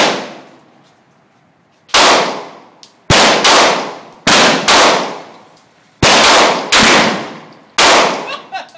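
Loud handgun shots from a .44 Magnum revolver and a pistol fired in the next lane, about eight in all at an uneven pace, some in quick pairs. Each shot cracks and then trails off in a long echo under the range's roof.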